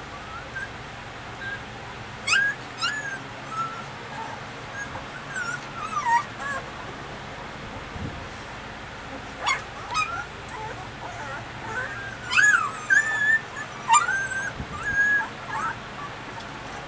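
Nursing puppies squeaking and whimpering: short, high squeals that come in clusters, busiest and loudest near the end.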